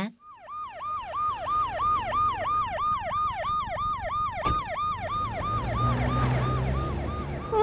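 Cartoon ambulance siren: a fast yelp that sweeps down and back up in pitch about three times a second, fading toward the end. A low vehicle rumble swells under it near the end.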